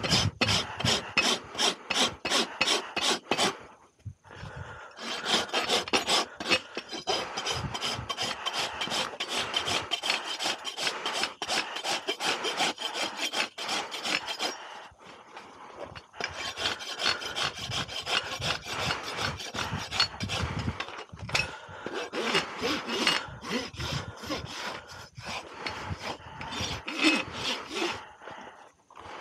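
Farrier's hoof rasp scraping back and forth across a horse's hoof wall in quick, even strokes, about four a second, in runs broken by short pauses.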